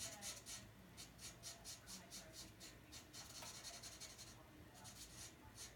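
Faint scratching of a Japanese brush pen's tip on paper in quick short strokes, about four or five a second, with one longer drawn-out stroke about three seconds in and a brief pause after it.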